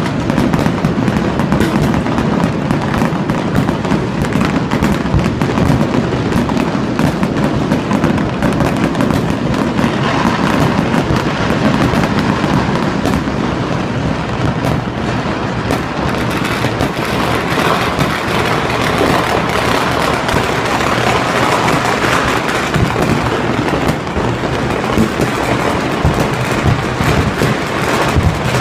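Fireworks going off all over a city at once: a continuous, dense barrage of bangs and crackling with no let-up.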